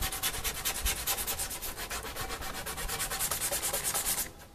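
Painted wooden tabletop being hand-sanded with sandpaper in quick back-and-forth strokes, a steady scratchy rasping that stops abruptly near the end.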